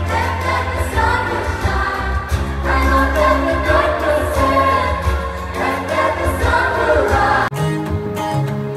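Live pop song with two singers and a children's choir singing along over a band, amplified through the stage PA. About seven and a half seconds in it cuts off abruptly and guitar-led instrumental music takes over.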